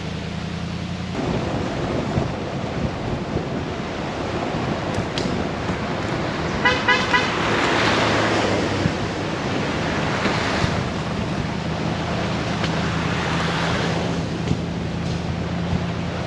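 Vehicle driving with a steady engine hum and road noise, and a quick run of short horn toots about seven seconds in.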